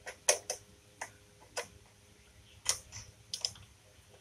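A steel spanner clicking on a motorcycle's rear chain-adjuster lock nut as the nut is worked loose: about nine sharp metallic clicks at uneven intervals.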